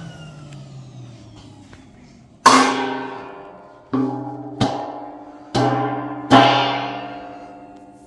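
A large stainless-steel tray struck five times, each hit ringing on and fading away like a gong, as if it were being played as a drum. The first hit is the loudest.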